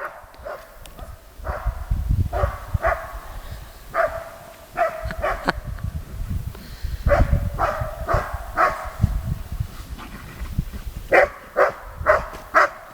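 A dog barking and yelping excitedly, many short barks in quick runs, over a low rumble.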